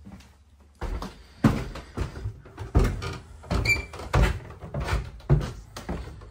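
Footsteps coming down a wooden staircase, a heavy tread about every half second, with a short squeak a little past halfway.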